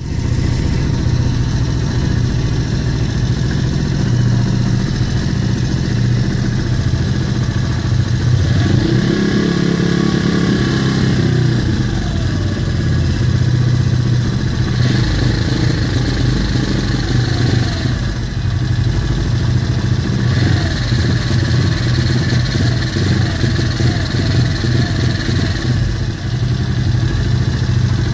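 Kayo YX140E Classic pit bike's 140 cc single-cylinder four-stroke engine running, revved up about nine seconds in and with several smaller swings in revs after. This is the owner's complaint: the engine sputters and its revs float when the throttle is opened and held, though it idles cleanly and adjusting the valve clearance has not cured it.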